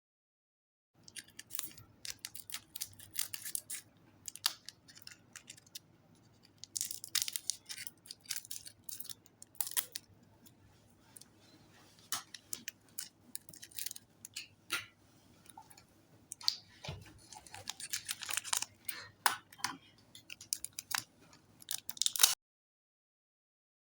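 Slime being kneaded and stretched by hand, giving clusters of sticky clicks and crackles that come in bursts.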